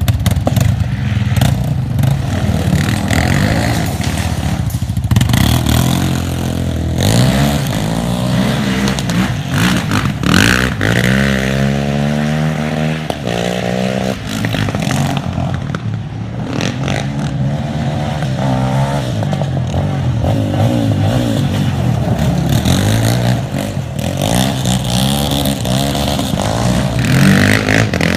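Yamaha Raptor 700 and Suzuki LTZ 400 sport quads' single-cylinder four-stroke engines running and revving. The pitch rises and falls again and again as the throttle is opened and let off.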